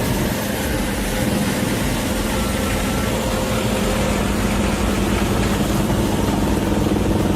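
Heavy industrial shredding or chipping machine running steadily: a constant engine drone under a dense mechanical noise.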